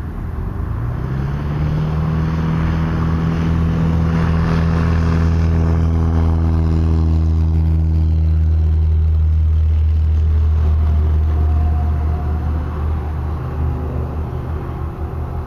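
Aircraft tow tractor's motor running as it pulls a light plane across the apron: a steady hum that rises in pitch about a second in, holds, and falls back near the end.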